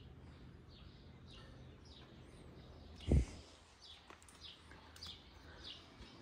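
Birds chirping: a steady run of short, high, downward-sliding notes, several a second. A single loud low thump about halfway through.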